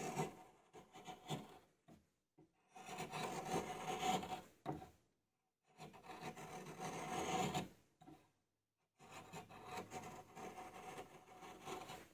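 A freshly ground steel chisel paring along the edge of a wooden board, shaving off curls of wood; this is a test cut of the newly sharpened edge. The scraping comes in four bouts: a few short strokes, then three longer pushes separated by brief pauses.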